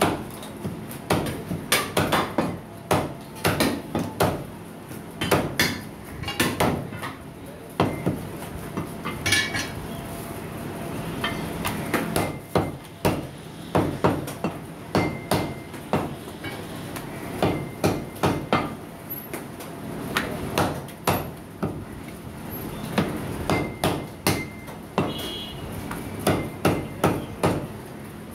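A butcher's cleaver chopping mutton on a chopping block: repeated sharp chops in quick runs of several strokes, with short pauses between the runs.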